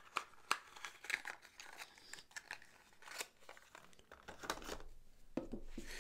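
Packaging being handled during an unboxing: faint, irregular crinkling with light clicks and rustles.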